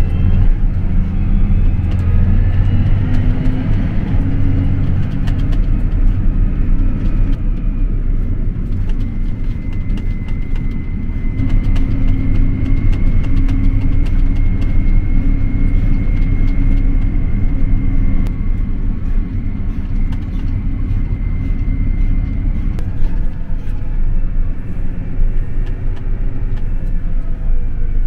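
Large farm tractor's engine running under load, heard from inside the cab as a steady low rumble. A thin, steady high whine comes in about ten seconds in and fades out a few seconds before the end.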